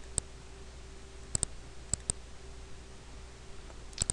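Computer mouse button clicks, mostly in quick press-and-release pairs, a handful spread over a few seconds above a faint steady hum.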